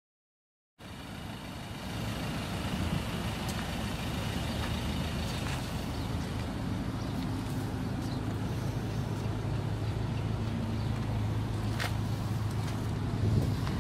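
Turbo-diesel engine of the Ford Ranger ute idling steadily, setting in abruptly about a second in, with a few sharp clicks near the end.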